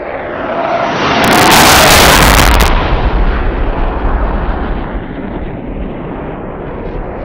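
Film sound effects of an aerial battle: a roar swells over about a second into a loud explosive blast, then fades into a lower rumble.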